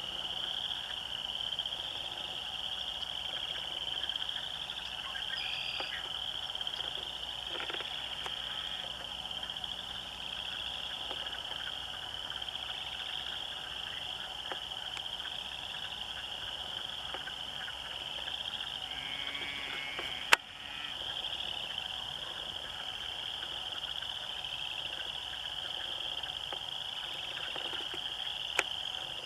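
A chorus of many frogs trilling without a break, a dense pulsing sound. A sharp click cuts in about two-thirds of the way through, and a smaller one comes near the end.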